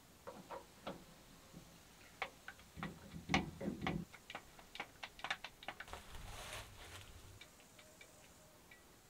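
Hand lever grease gun being pumped into a grease fitting on a combine harvester: a run of irregular clicks and clacks from the lever and coupler, thickest in the middle, with a few duller knocks.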